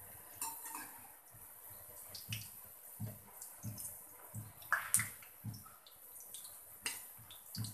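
Potato and rice-flour cakes frying in hot oil: a steady sizzle with many irregular crackles and pops, the loudest about five seconds in, as they are lifted out on a slotted metal spoon to drain.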